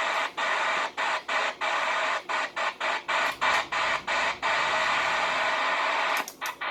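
CB radio receiver hissing with open-channel static on a dead band. The static is chopped by a quick irregular run of brief dropouts over the first few seconds and two more near the end.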